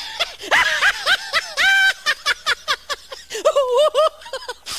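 A man laughing hard and uncontrollably in rapid, high-pitched bursts, with one longer drawn-out burst about two seconds in and lower-pitched bursts near the end.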